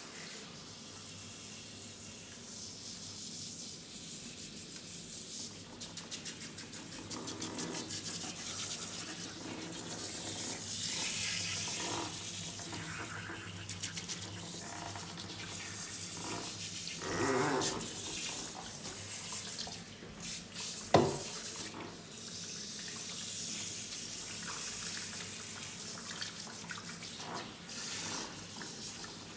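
Hand-held shower sprayer spraying water onto a wet cat in a grooming tub: a steady hiss and splash of water on fur and the tub. A single sharp knock stands out about two-thirds of the way through.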